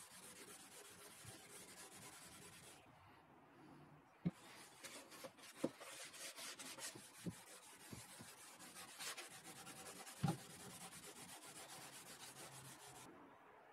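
Faint rubbing of a pad over a wooden cabinet shelf as mineral oil is worked into the old wood, broken by a few light knocks.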